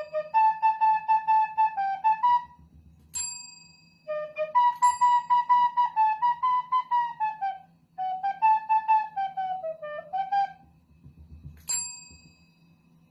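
A recorder playing a short tune in three phrases, with a desk service bell struck twice by a Shiba Inu's paw, once about three seconds in and once near the end, each ding ringing on.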